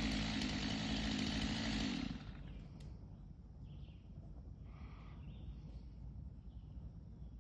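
Two-stroke chainsaw running steadily, then cut off suddenly about two seconds in. A few faint bird calls follow.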